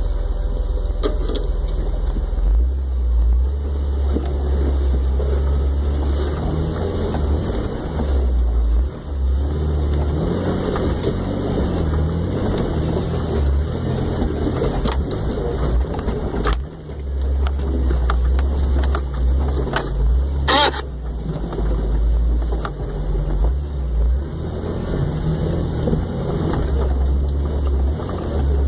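Off-road vehicle driving slowly over a rough dirt trail: a steady low engine rumble with a few sharp knocks from the rig, the strongest about twenty seconds in.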